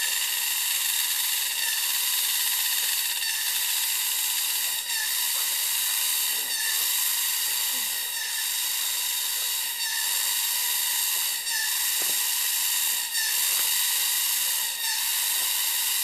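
Rainforest cicadas buzzing in a loud, steady chorus, a high shrill drone that never lets up. A faint tick repeats about every second and a half.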